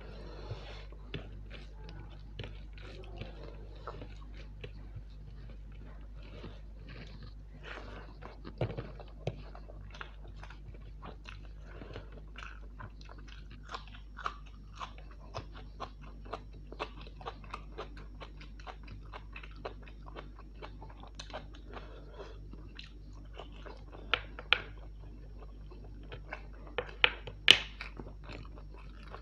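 A person eating close to the microphone: steady wet chewing and mouth clicks, with a few sharper, crunchy bites that stand out, the loudest near the end.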